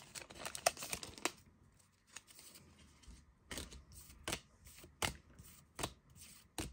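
Foil booster-pack wrapper crinkling as a stack of trading cards is pulled out of it, then the cards slid off the stack one at a time with five crisp flicks, a little under a second apart.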